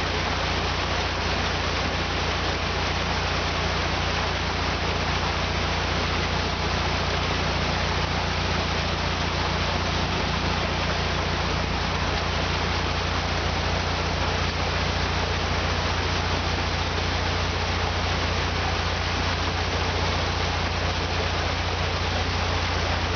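Steady rush of water pouring through the lock paddles, over the low, even hum of a narrowboat's diesel engine idling.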